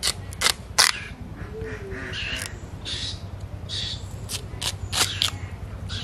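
Raw mankachu (giant taro root) being sliced on a bonti, the upright curved blade of a Bengali kitchen: a series of crisp, sharp cutting strokes, three in the first second and four in quick succession near the end.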